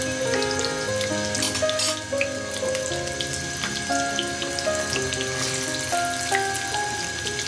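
Rui fish kababs deep-frying in a wok of hot oil, a steady sizzle with fine crackles, under instrumental background music.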